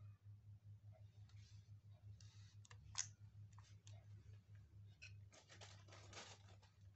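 Faint handling sounds of a car head unit's plastic wiring connector being plugged in, with one sharp click about three seconds in and light rustling as the unit is set down on carpet. A low steady hum sits underneath.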